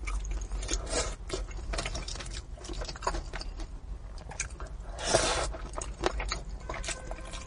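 Close-miked eating: a person chewing and biting braised fish, with many short wet mouth clicks and smacks. There is one louder, longer burst of mouth noise about five seconds in.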